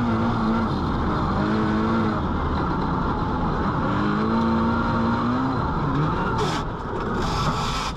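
Rally car engine heard from inside the cabin, revving up and down as the driver lifts off and accelerates again. Near the end comes a rush of hiss as snow sprays over the car.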